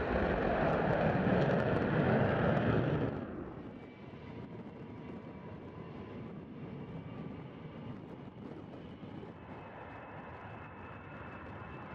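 A twin-engine fighter jet climbs out on afterburner with a loud, dense engine roar that cuts off suddenly about three seconds in. After that comes the quieter steady rumble of an Il-76-type four-engine jet transport's turbofans as it rolls along the runway, with a faint whine.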